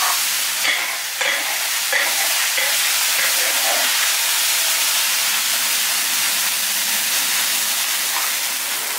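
Pork liver being stir-fried at high heat in a large iron wok, sizzling loudly and steadily. A metal spatula scrapes and knocks against the wok a few times in the first two seconds.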